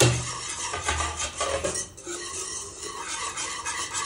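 Wire whisk stirring fast in a nonstick saucepan, its wires scraping and clicking against the pan as powdered cashews are whisked into a cornflour-thickened chocolate cream. The scraping eases off briefly about two seconds in.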